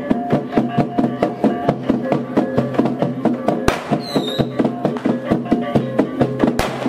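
Traditional Lampung percussion music: fast, evenly spaced strikes, about five a second, on pitched wooden or bamboo instruments, repeating a short melody. Two sharp loud bangs cut through, one about halfway and one near the end.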